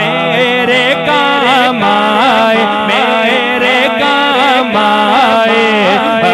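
A man singing a naat in a wavering, ornamented vocal line into a microphone, with a steady low drone held underneath.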